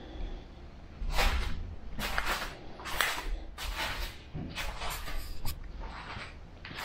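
Footsteps scuffing across a gritty concrete floor, a dry scrape about every two-thirds of a second, starting about a second in.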